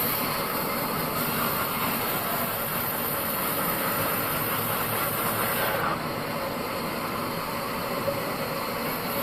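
Band sawmill running, a steady mechanical noise with a high hiss; about six seconds in the hiss drops away and the machine runs on more quietly.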